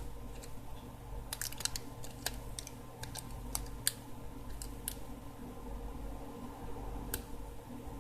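Light, sharp clicks and taps of a smartphone and its parts being handled during reassembly, clustered in the first half with one more near the end, over a steady faint hum.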